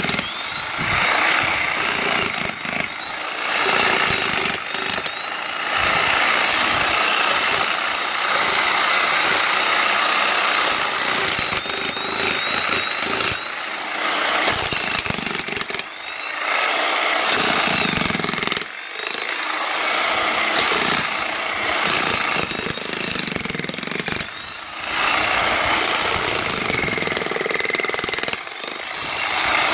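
Jackhammer hammering in long runs, stopping briefly a few times and starting again, with a thin high whine above the hammering for much of the time.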